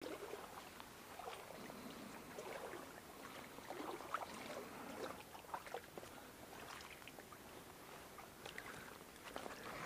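Small stream trickling and gurgling faintly, with irregular little splashes and bubbling.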